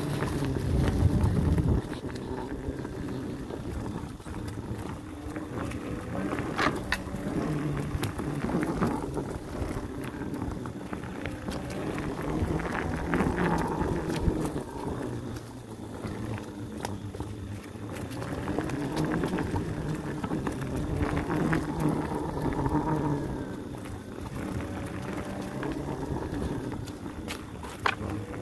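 A trail bike ridden along a forest single-track trail: a droning motor note that rises and falls with the riding, over rattle and rushing air on the phone microphone, with a sharp knock near the end.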